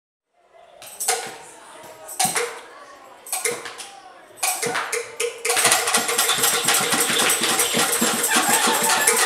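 Hand drum beaten in a few slow, loud strokes about a second apart, then rapid, steady beating from about halfway through.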